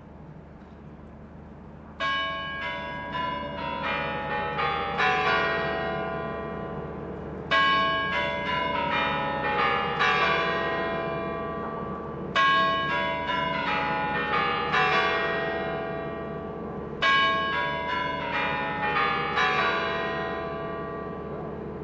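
Bells of the Kremlin's Spasskaya Tower clock ringing the chime melody that comes before the hour is struck: four phrases of ringing bell notes about five seconds apart, starting about two seconds in, each left to ring and fade.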